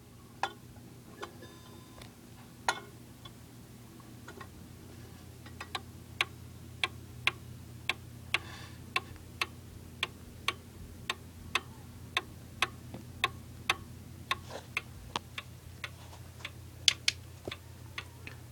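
Spring-driven movement of a D&A 31-day wall clock ticking. A few scattered ticks come first, then from about six seconds in a steady tick about twice a second. A steady low hum sits underneath.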